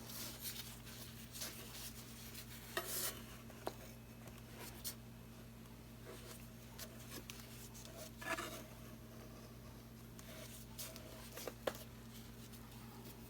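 Quiet room with a steady low electrical hum, broken by scattered light taps and short soft rubbing sounds of paint tools and cups being handled.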